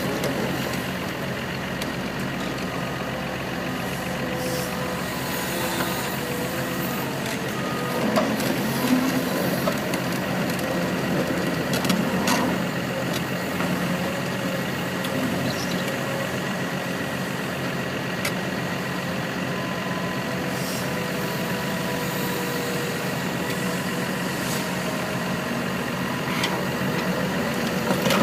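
Caterpillar 329 crawler excavator's diesel engine running steadily under load as the machine climbs, with a steady whine over it and occasional sharp knocks.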